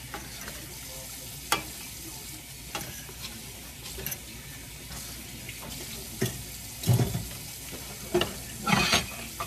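Metal utensils clicking and scraping against a stainless steel pan as soft rice noodles are tossed and stirred, over a steady faint sizzle. A few louder clatters come near the end.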